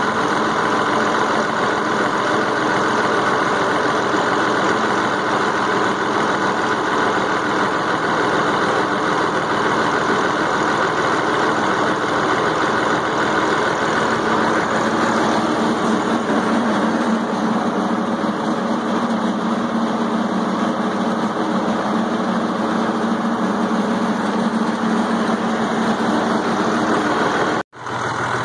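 International Harvester tractor engine running steadily as the tractor drives along, picked up close to the hood and upright exhaust stack. The engine note deepens about halfway through, and the sound cuts out for a moment near the end.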